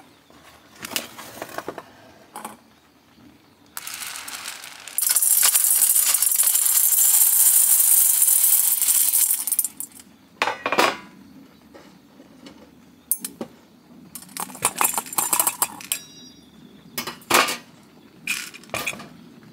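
Raw green coffee beans poured through a stainless-steel funnel into a wire-mesh roasting drum: a loud, dense rattle from about five to nine and a half seconds in, with scattered clicks and taps of beans and metal before and after.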